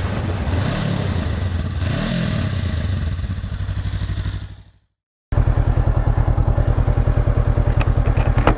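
Honda CB500X's parallel-twin engine running, the revs rising and falling twice, then fading out. After a brief silence the engine is heard again, running steadily with an even pulsing beat.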